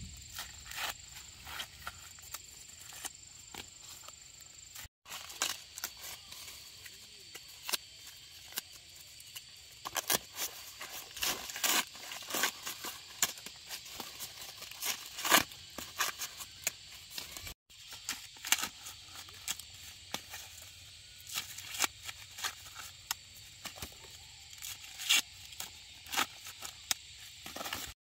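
Irregular crisp snaps, rustles and tearing of plant material worked by hand, such as corn being picked and husked, over a faint steady high whine.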